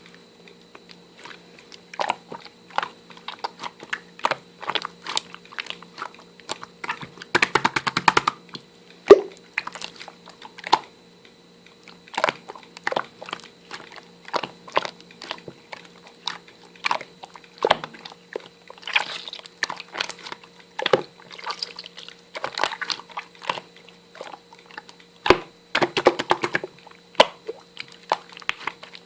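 Crunchy chewing and biting: irregular crisp cracks and crunches, denser in a few clusters, over a faint steady hum.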